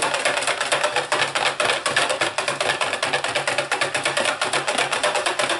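Wire whisk stirring fast in a plastic pitcher, a rapid clatter of about ten strokes a second: tussah silk being whisked into hot lye solution until it dissolves.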